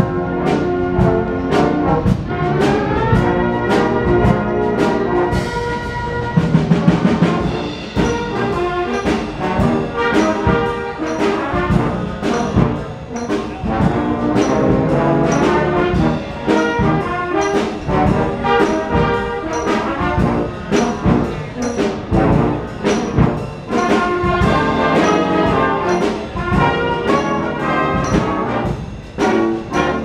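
Instrumental music with a steady beat, playing for a street dance performance.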